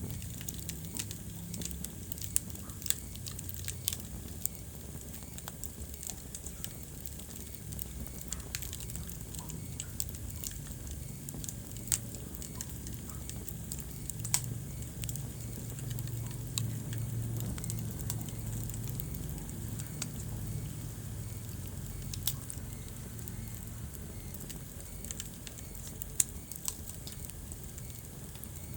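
Wood fire burning in a fireplace: a steady low rumble of flames with frequent small crackles and a few sharper pops scattered throughout.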